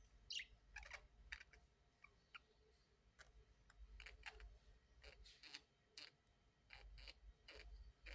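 Faint, scattered short chirps and clicks from parrots, a few of the chirps sliding down in pitch.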